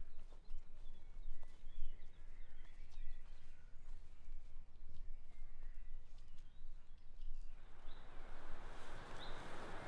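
Outdoor ambience: faint birdsong over a low rumble, with a steady hiss swelling in about three-quarters of the way through.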